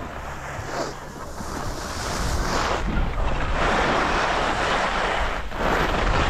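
Skis hissing and scraping over packed, tracked snow as a skier descends, mixed with wind noise on the camera's microphone. The sound comes in a series of swells and grows louder as the run goes on.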